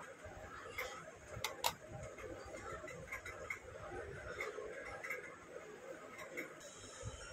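Small tumbled stone being handled and set down on the steel pan of a digital pocket scale: faint irregular clicks and taps, the loudest a sharp pair of clicks about one and a half seconds in.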